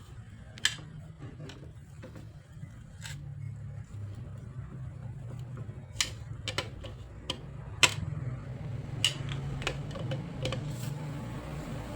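Scattered sharp clicks and taps of tools and parts being handled, a dozen or so spread over the stretch, over a low steady hum.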